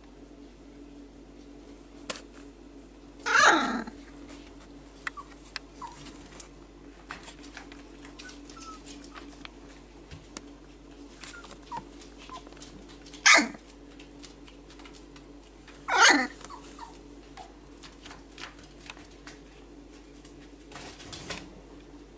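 Four-week-old whippet puppy giving three short barks, the first and longest about three seconds in, the others near 13 and 16 seconds, with faint rustling of puppies on fleece between them.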